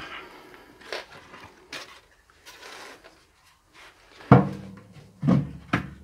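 Split firewood logs being laid into a wood-burning sauna stove's firebox: a handful of wooden knocks as the logs hit each other and the firebox, the loudest about four seconds in, with some scraping in between.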